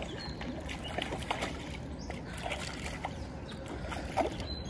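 A hooked rainbow trout splashing at the water's surface, a series of short sloshing splashes over the steady run of the creek.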